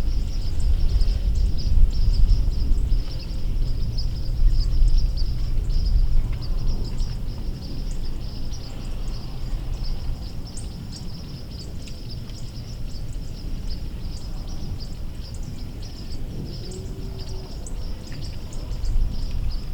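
Outdoor field ambience: wind rumbling on the microphone, heavier in the first several seconds, under a steady high-pitched chirring of many quick ticks, with faint bird calls.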